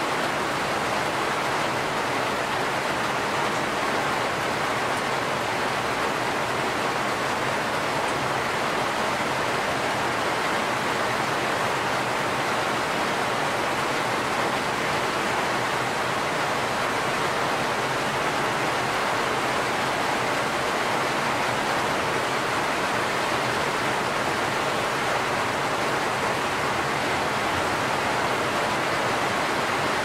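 Steady rain falling, a dense, even hiss with no single drops or gusts standing out.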